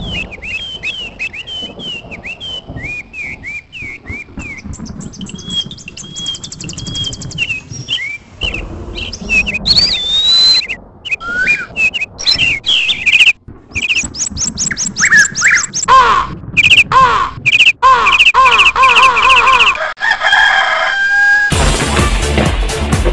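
Birds chirping and singing in a run of short, abruptly cut segments: quick repeated chirps, then varied whistled calls and evenly repeated notes. Music comes back in near the end.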